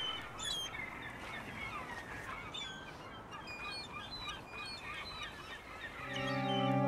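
A flock of birds calling, many short overlapping calls over a faint outdoor hiss. About six seconds in, a sustained music chord fades in.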